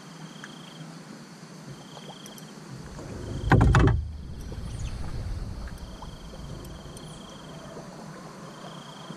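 Insects trilling in short, evenly repeated phrases. About three and a half seconds in there is a loud thump with a few clicks as someone moves about in the small fishing boat, followed by a low rumble.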